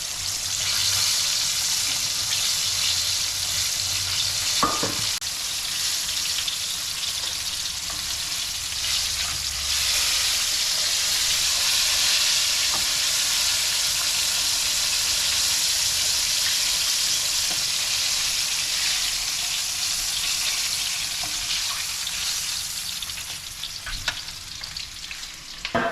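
Cornstarch-coated mahi mahi pieces deep-frying in hot oil: a steady, loud sizzle that thins out near the end.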